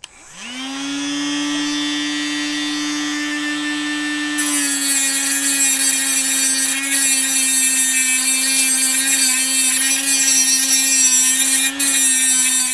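Grinder spinning up to a steady whine, then from about four seconds in grinding down the staked rivet head of a motorcycle chain pin. Under load its pitch drops a little and a harsh high hiss of metal being ground joins the whine. It stops just before the end.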